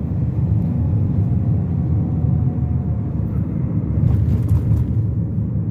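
Steady low rumble of a car's engine and tyres on the road, heard while driving.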